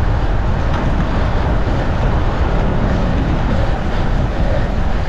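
Steady wind rush on an action camera's microphone, with tyre and road noise, while riding a road bike at speed.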